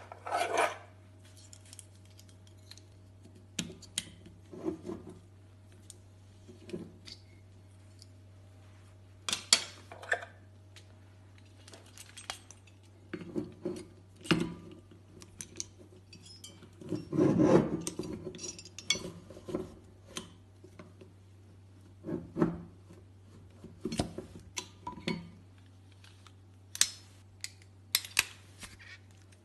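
Scattered clicks, clinks and rubbing of metal and glass as a rabbit-style lever corkscrew and its foil cutter are worked on a wine bottle, with one longer, louder scrape a little past halfway. A low steady hum runs underneath.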